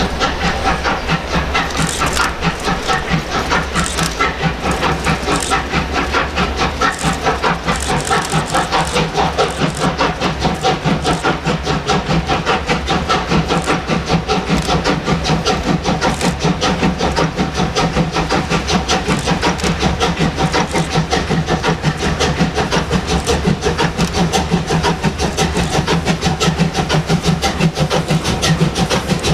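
A steam locomotive working hard under load as it approaches, its exhaust beating in a fast, even rhythm, with steam hissing from the open cylinder drain cocks.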